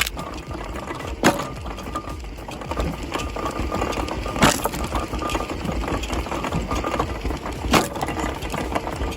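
Engine-driven wood-processing machine running steadily while wood splits and breaks with sharp cracks, about one every three seconds.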